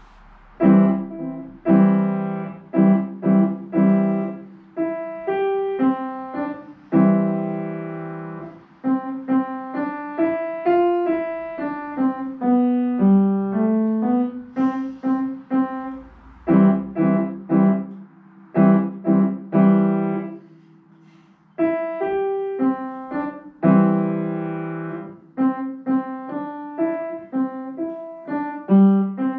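A child playing a solo piece on an acoustic upright piano: separate notes and chords, each fading after it is struck, with a brief pause about twenty seconds in.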